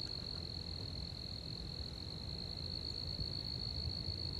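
Sphagnum ground crickets singing faintly: one thin, steady, high-pitched trill held without a break, over a low rumble.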